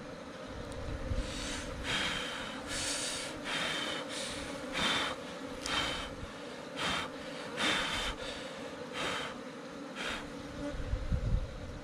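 Honey bees buzzing steadily at their nest in the ground while the comb is being pulled out. About ten short, breathy puffs come roughly once a second over the top.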